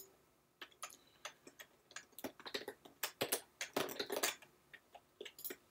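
Typing on a computer keyboard: a run of short, irregular key clicks.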